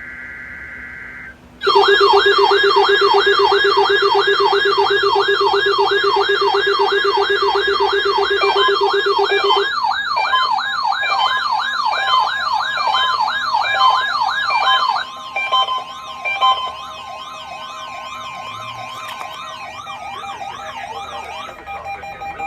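A NOAA Weather Radio SAME data burst, then a bank of weather alert radios and alarms going off together at the alert signal: a fast rising-and-falling siren wail, a steady buzz and several beeping patterns. The wail stops about fifteen seconds in, leaving a steady tone and quieter beeps.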